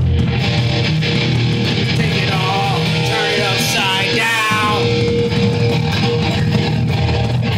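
Distorted electric guitar playing a heavy metal riff, with a voice singing a wavering, sliding line through the middle.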